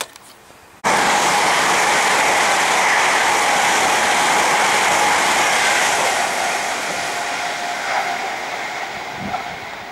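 LNER InterCity 225 train of Mark 4 coaches passing close at speed: a loud, steady rush of wheels on rail that starts suddenly about a second in, then fades over the last few seconds as the train moves away.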